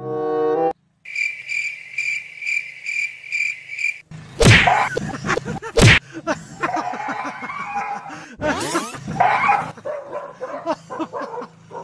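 Cricket chirping sound effect, a regular chirp about two or three times a second for some three seconds, then two loud sharp hits and a mix of dog barks and yelps.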